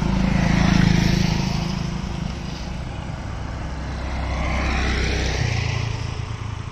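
Engine noise of a passing vehicle, swelling about a second in and again around five seconds over a steady low rumble.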